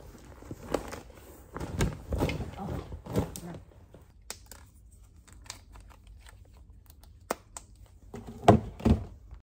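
Handling noises as bags and belongings are picked up and packed: irregular clicks, knocks and rustles, with two louder thumps near the end.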